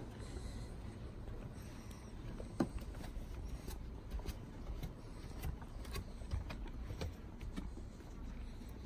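Low steady rumble of wind on the microphone, with scattered faint clicks and taps.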